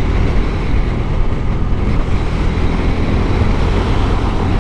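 Motorcycle running at a steady speed on the road, engine hum under a constant rush of wind and road noise.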